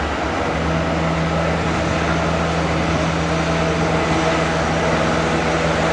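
Diesel engine of a truck-mounted mobile crane running steadily, a low even hum, over a wash of outdoor site noise.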